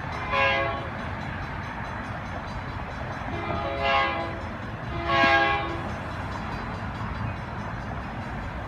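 Passenger train horn sounding three chord blasts, a short one and then two longer ones close together about three seconds later, over the steady rumble of the moving train.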